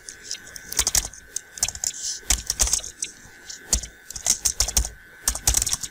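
Typing on a computer keyboard: irregular runs of quick key clicks with short pauses between words.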